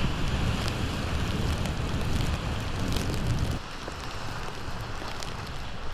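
Ocean surf roaring on the rocks, with wind buffeting the microphone; the wind rumble eases about three and a half seconds in.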